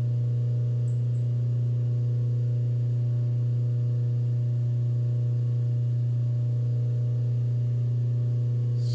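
Steady low electrical hum with a few faint higher overtones, unchanging in pitch and loudness.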